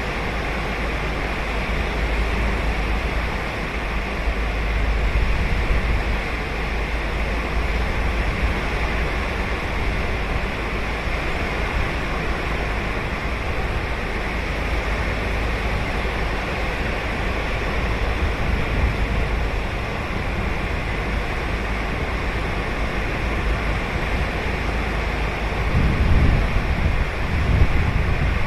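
Ocean surf washing steadily onto the beach, with low wind rumble on the microphone that gusts harder twice near the end.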